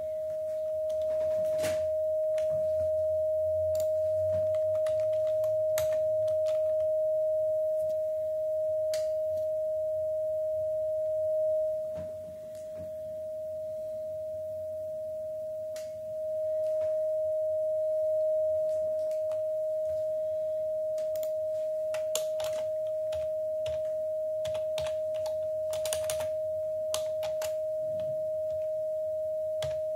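Icom transceiver's CW sidetone held as one unbroken steady tone, the rig stuck keyed down in transmit. This is the error the title lays to hamlib with the TLF logger. Computer keyboard typing clicks over it, more often in the second half.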